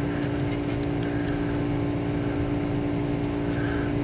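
A steady, even mechanical hum with a low rumble, overlaid by a few faint ticks.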